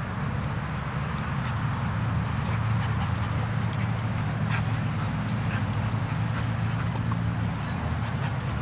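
Dogs at play, a Doberman and another dog, heard faintly over a steady low hum.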